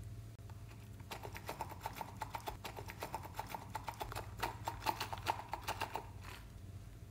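Rapid, even clicking from a hollow plastic pig figure handled in the hands, about five clicks a second, starting about a second in and stopping near the end.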